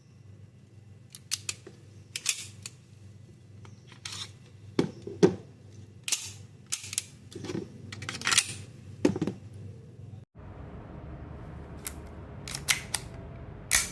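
A series of sharp clicks and snaps at uneven intervals, about a dozen, some with a dull knock beneath them.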